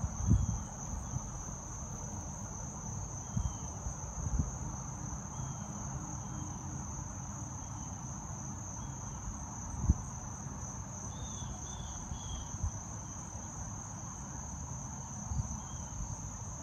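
Insects trilling steadily in one continuous high note, with a few short faint chirps over it. A few dull thumps, the loudest about ten seconds in.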